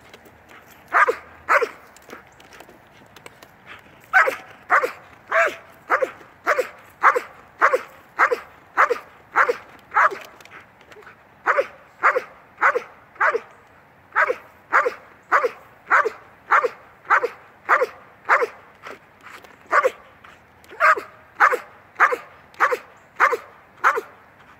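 A Belgian Malinois barking steadily and loudly at the decoy in protection training, about one and a half barks a second, in several runs with short pauses.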